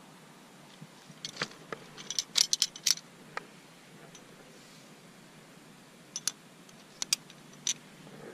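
Climbing hardware clinking: carabiners and trad protection knocking together. There is a quick flurry of sharp metallic clicks about a second in, then a few more separate clicks later.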